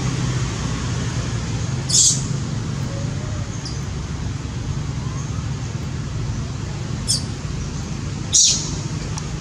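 Steady low background rumble with three short, high-pitched squeaks: one about two seconds in, then two close together near the end.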